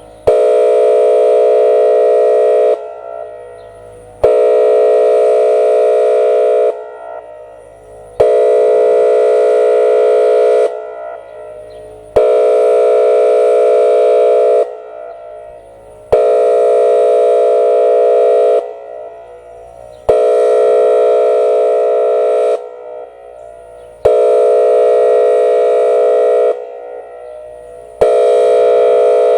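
Whelen WPS-2805 electronic storm siren sounding its air-horn signal, a steady 456 Hz horn tone. It comes in blasts of about two and a half seconds repeating every four seconds, eight in all, each starting abruptly and echoing away in the gap. This is a scheduled siren test of the tone used for tornado warnings.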